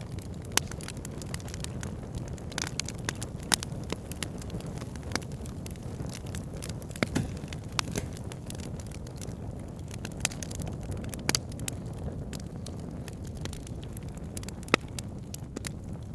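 Wood fire burning in a fireplace: a steady low rumble of flames with frequent sharp crackles and pops, and a few louder snaps.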